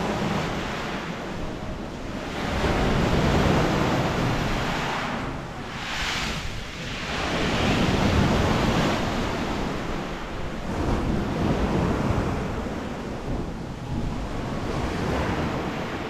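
Black Sea surf breaking and washing onto a pebble beach, swelling and easing every few seconds, with wind buffeting the microphone.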